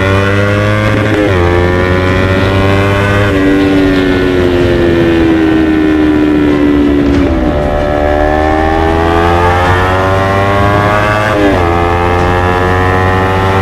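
Kawasaki Ninja 250 FI's parallel-twin engine through an Akrapovic GP full-system exhaust, pulling hard with the pitch climbing and then dropping sharply at an upshift about a second in and again near the end. Through the middle the revs sag slowly for a few seconds, dip, then climb again.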